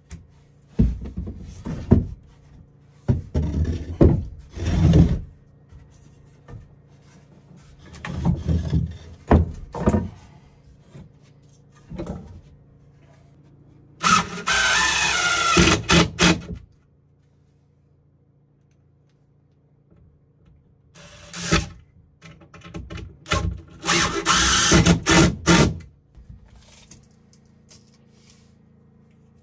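Power drill running in short bursts of one to three seconds as it drives into wood; the longest run comes about fourteen seconds in, and a few seconds of quiet follow it.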